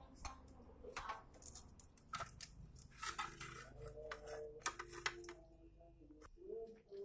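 Glass bottle and dishes clinking and knocking in a sink as a small child handles them: a string of separate sharp clinks. A faint steady tone joins in the second half.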